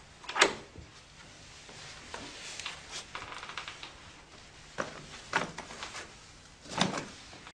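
A wooden panelled door pushed open, with one sharp latch click about half a second in. A few soft footfalls and handling knocks follow as someone steps through.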